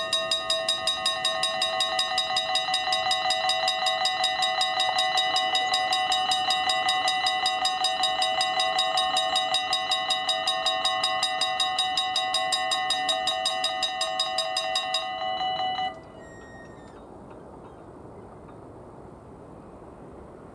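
Level-crossing warning bell ringing rapidly, about four to five strokes a second, while the half-barriers lower for an approaching train. It stops about fifteen seconds in, with the barriers down.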